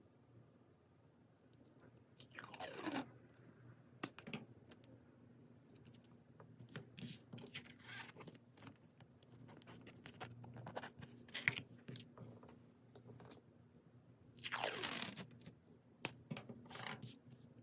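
Packaging being handled by hand: crinkling and crunching with scattered light taps and clicks, and two longer sweeping rips that fall in pitch, about three seconds in and near the end.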